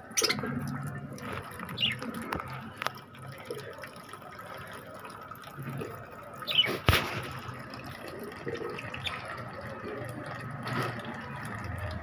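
Water dripping and splashing from a hand-held bottle onto budgerigars and their wire cage, with a few short budgerigar chirps. A single sharp click about seven seconds in.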